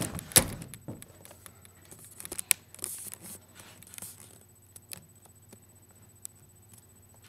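A sharp knock just after the start, then scattered clicks and scrapes with a stretch of rustling in the middle, dying down to a few faint ticks.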